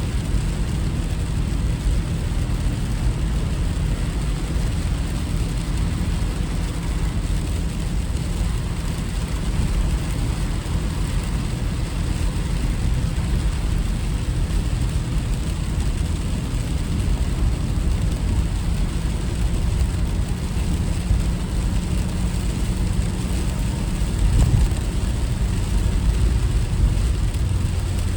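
Car driving: steady low engine and road rumble with no sudden events.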